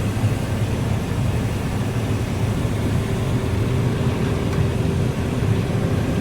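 Combine harvester running steadily during wheat harvest, an even low mechanical drone with a faint steady whine above it.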